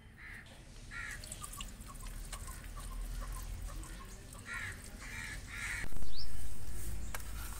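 Hens clucking in short calls while a wire whisk stirs thick batter in a ceramic bowl, with faint ticks of the whisk. About six seconds in, a loud low rumble swells suddenly and then fades.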